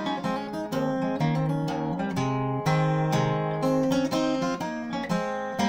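Solo acoustic guitar, capoed and fingerpicked, playing a traditional Irish tune: a steady run of plucked melody notes over a bass line.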